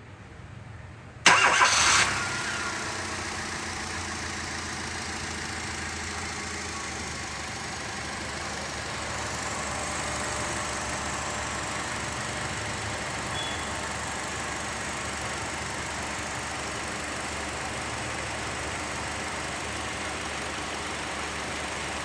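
Hyundai i10 petrol engine, freshly overhauled, starting about a second in with a short loud burst as it catches, then settling into a steady idle.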